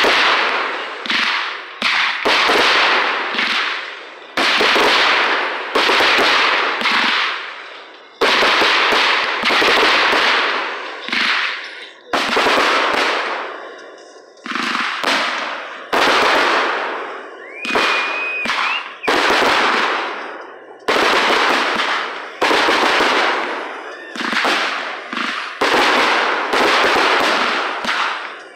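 Aerial fireworks going off in quick succession: loud bursts every second or two, each trailing off before the next. A short steady whistle sounds about two-thirds of the way through.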